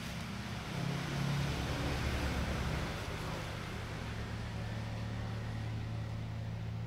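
A steady low motor hum, like an engine running out of sight, over a constant hiss. It swells a little about a second in and settles to an even drone after about four seconds.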